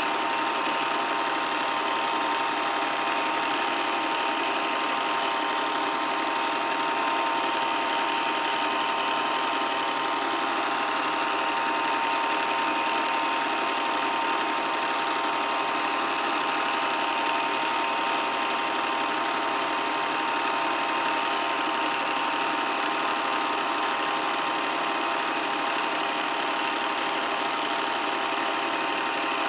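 8mm film projector running: the steady mechanical whirr and clatter of its film transport, with a steady tone near 1 kHz.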